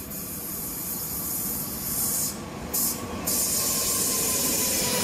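Passenger train moving through the station: a loud steady hiss that cuts out sharply twice near the middle, over a faint steady whine.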